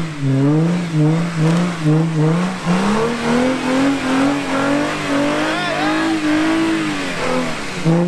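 Jeep Wrangler Unlimited JK's engine revving in quick pulses about twice a second, then climbing and holding higher for several seconds before the revs drop at the end, with a rough rushing noise under it. The Jeep is spinning its tires on slick tree roots and failing to get up the climb.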